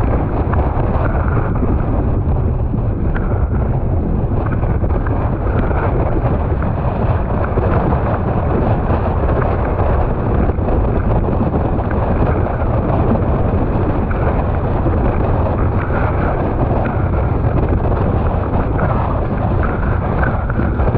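Storm wind buffeting the microphone of a camera mounted on a windsurfing rig: loud, steady, deep wind noise without a break.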